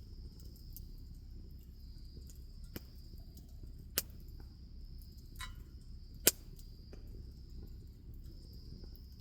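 Wood fire crackling, with a few sharp pops, the loudest about six seconds in. Under it is a steady high insect trill.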